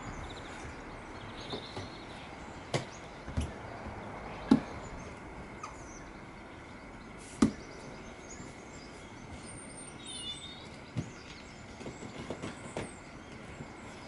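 Scattered knocks and thumps as the large hollow pieces of a giant Rubik's Cube are handled and set against one another during assembly, the loudest about halfway through, over a steady background hiss. A few faint bird chirps now and then.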